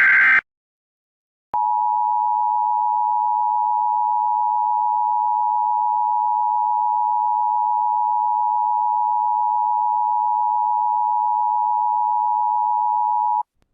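The end of an Emergency Alert System SAME header data burst, a short screeching digital warble, then about a second of silence. Then the EAS attention signal starts: a steady two-tone alert held unchanged for about twelve seconds, which cuts off just before the alert message would begin.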